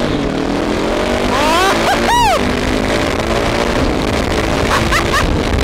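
KTM 690 SMC R single-cylinder engine running through a LeoVince aftermarket exhaust, pulling hard under acceleration. A short rising-and-falling whoop of a voice comes about two seconds in.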